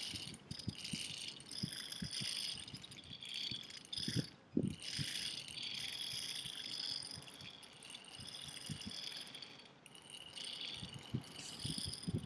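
Irregular rattling and clicking from a handmade wooden bird toy with a feather propeller, its seed beads and body knocking as it spins along its cord. A steady high chirring runs underneath.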